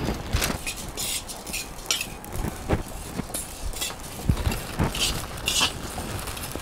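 A metal spatula scraping and stirring dry whole spices (cumin, fenugreek seeds and urad dal) around a large kadai, in repeated uneven strokes with the rustle of the seeds. The spices are being dry-roasted without oil.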